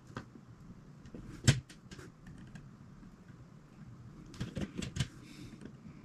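Sharp little clicks and taps of plastic Lego pieces being handled: one loud click about a second and a half in, a few lighter ones after it, and a quick cluster of clicks near the end followed by a brief faint rustle.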